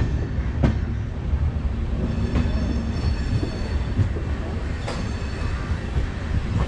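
Express train rolling into a station platform, heard from an open coach doorway: a steady rumble of wheels on rails with two sharp clacks, about a second in and near the end, and a faint high wheel squeal in the middle.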